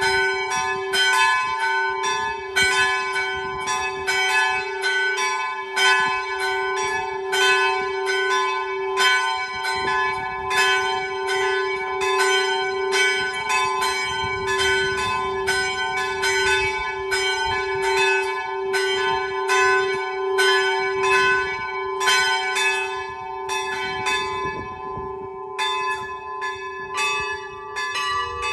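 Small church bells swinging in a hand-rung peal, pulled by cables, with their strokes coming thick and overlapping over a held low ringing note. Near the end the pattern of strokes thins and changes.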